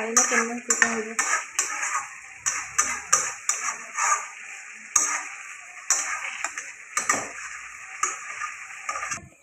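Flat metal spatula scraping and knocking against an aluminium kadai while stirring chicken in masala, in irregular strokes over a steady hiss. A voice is heard briefly near the start.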